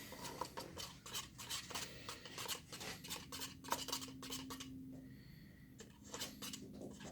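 Light scraping, rubbing and clicking from hands handling small plastic slime-kit items on a table, busiest through the first five seconds, then quieter with a few more clicks near the end.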